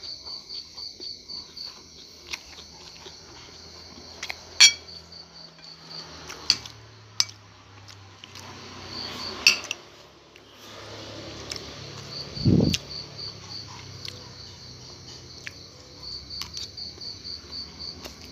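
Metal spoon clinking and scraping on a ceramic plate while eating rice, with sharp clinks about four and a half and nine and a half seconds in and a dull thump near twelve and a half seconds. Crickets chirp throughout in repeated pulsed runs.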